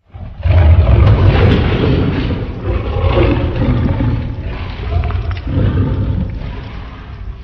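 Loud, growling monster roar, a horror-creature voice effect. It starts suddenly about half a second in and goes on in several swells over a deep rumble.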